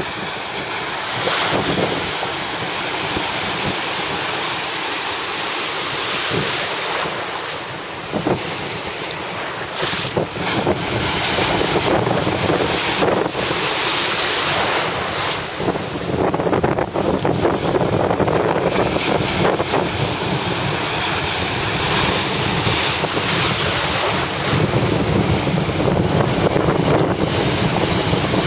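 Small waves breaking and washing through the shallows, with wind buffeting the microphone in gusts.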